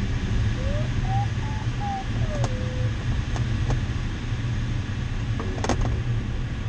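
Inside a glider cockpit, a steady rush of airflow with a low hum runs throughout. The electronic variometer beeps in a short run of tones that rise and then fall in pitch, marking a brief, weak bump of lift. A few sharp clicks sound near the middle and the end.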